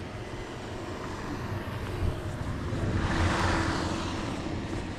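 A car running close by and passing: a steady low engine rumble, with a swell of engine and tyre noise that peaks about three seconds in and then fades.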